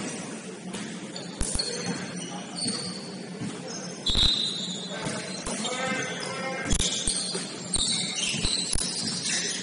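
Basketball game sounds on a gym court: sneakers squeaking in short high chirps, a basketball bouncing in several sharp thuds, and players calling out.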